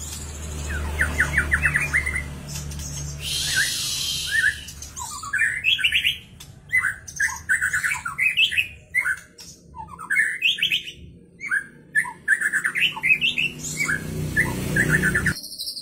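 White-rumped shama (murai batu) singing: a long run of varied whistled phrases with quick rapid-note trills, and a short hissing rasp about four seconds in.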